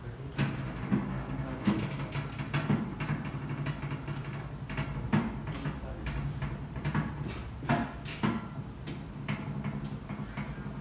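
Irregular sharp knocks, clicks and creaks, one or two a second, from a patient being handled on a chiropractic treatment table, over a steady low hum.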